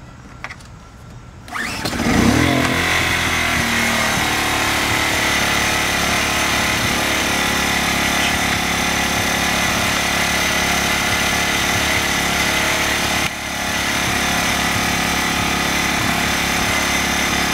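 Ryobi RYi1000 1000-watt inverter generator's small four-stroke engine starting about a second and a half in, revving up briefly, then running at a steady speed with no load connected.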